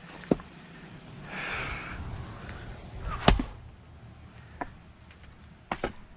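Firewood being split by hand: a heavy breath, then a single loud axe strike into a log about three seconds in. Lighter wooden knocks follow near the end, with a sharp knock near the start.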